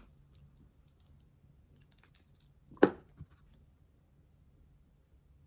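A few light clicks and taps of small objects being handled on a tabletop, the loudest a sharp knock almost three seconds in.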